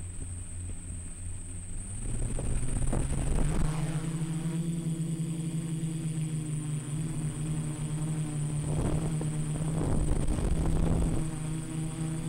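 Small quadcopter's electric motors and propellers heard from onboard: a low hum on the ground, then about two seconds in the motors spin up for takeoff into a steady buzzing drone. Two stretches of louder rushing noise come through during the flight, with a constant faint high whine underneath.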